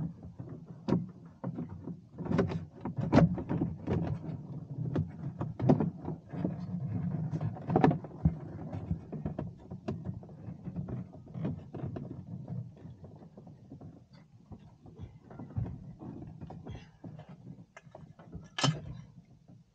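Hands working on wiring and fittings inside a fibreglass boat locker: irregular knocks, clicks and rustling over a low steady hum, with one sharper, louder scrape or snap near the end.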